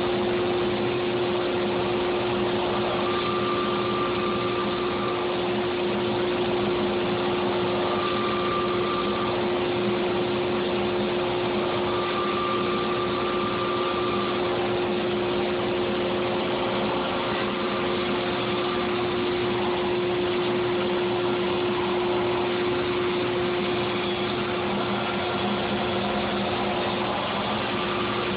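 EZ CNC Model 4896 CNC router running: a steady machine hum with one strong held tone, and a higher whine that comes and goes every few seconds.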